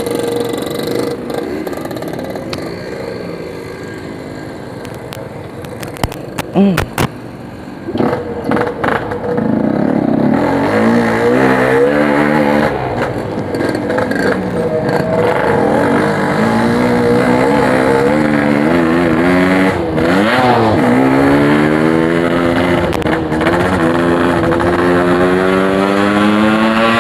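Yamaha RX-King's 135cc two-stroke single through a Packing Power aftermarket exhaust, running and revving, its pitch climbing and dropping again and again from about ten seconds in. A few sharp knocks come around six to eight seconds in.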